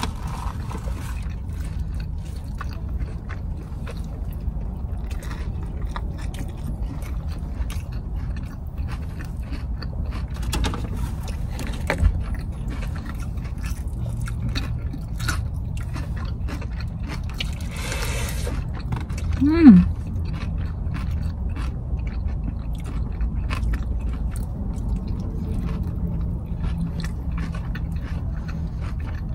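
Close-up chewing and biting of a burger and fries, with scattered small clicks and scrapes over a steady low rumble. About twenty seconds in comes a short squeak falling in pitch, the loudest sound.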